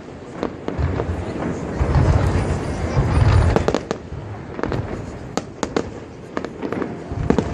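Fireworks display: deep booms of shells bursting, the heaviest about two to three and a half seconds in, mixed with sharp crackling reports scattered throughout.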